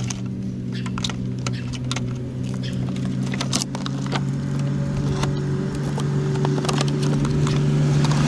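Scattered clicks and rattles of a plastic string-trimmer head and its packaging being handled, over the steady hum of an idling engine.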